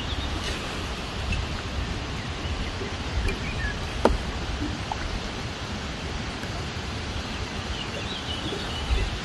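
Steady outdoor background noise with faint bird chirps, and a single sharp knock about four seconds in.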